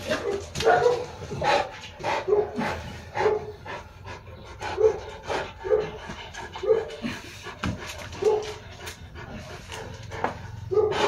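Saint Bernard dog panting: quick breaths in an uneven rhythm, about one or two a second.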